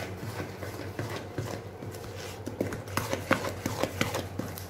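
Spoon stirring thin cake batter in a plastic mixing bowl: quick, irregular taps and scrapes against the bowl, several a second.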